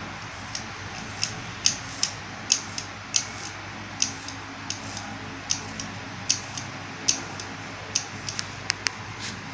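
Sharp clicks, about two a second, as an electronic cigarette box mod's fire button is pulsed to dry-burn a freshly wrapped coil on a Cherry Bomber rebuildable atomizer until it glows red.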